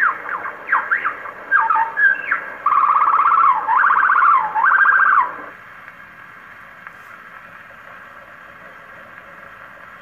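Superb lyrebird song played from an old 78 rpm record on an acoustic Victor Victrola gramophone, thin and lacking highs: a run of sweeping whistled notes, then a loud, rapid trilled phrase that rises and falls in pitch. It stops about five and a half seconds in, leaving only the record's surface hiss.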